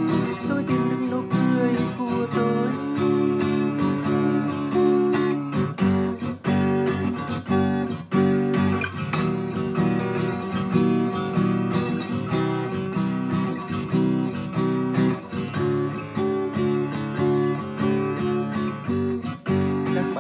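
Acoustic guitar strummed steadily through a run of chords, without singing.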